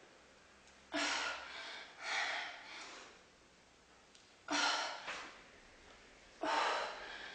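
A woman breathing hard through her mouth during push-ups: three strong breaths about two seconds apart, each followed by a softer breath about a second later.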